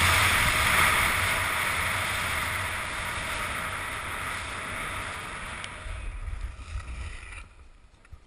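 Skis sliding and scraping over packed snow with wind rushing across the camera's microphone during a downhill run, a steady hiss over a low buffeting rumble. It fades as the skier slows and drops off suddenly near the end when they stop.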